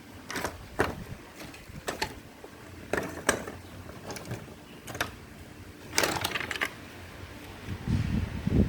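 Small plastic parts being handled and taken apart: a series of sharp clicks and knocks at irregular intervals, a quick cluster of them past the middle, then low rumbling handling noise near the end.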